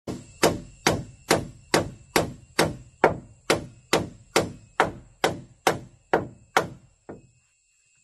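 Hammer striking upward into the timber beams and boards of a wooden floor overhead: a steady run of about seventeen sharp blows, roughly two a second, the last one lighter.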